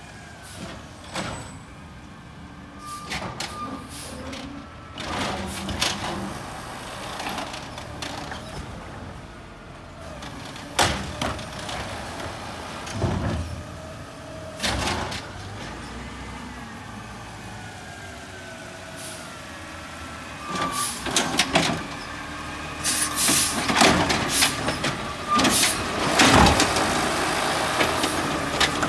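Automated side-loader garbage truck at work: its engine running and rising and falling in pitch, with hissing air brakes and repeated knocks and clatter as its arm picks up and tips curbside carts. The sounds grow louder and busier over the last several seconds as the truck reaches the camera.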